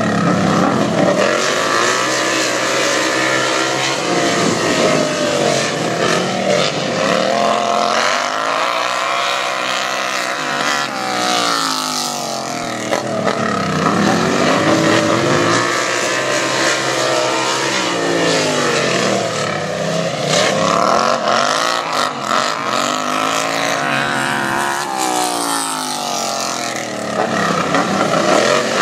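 Several racing lawn tractor engines revving as the machines lap a dirt oval, their overlapping pitches rising and falling again and again as they throttle up on the straights and ease off into the corners.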